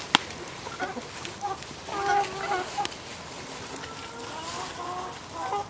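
Chickens clucking in short broken calls, loudest about two seconds in, with one sharp click right at the start.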